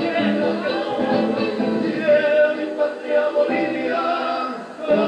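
Andean folk group performing live: male voices singing a melody together over string accompaniment that includes a charango.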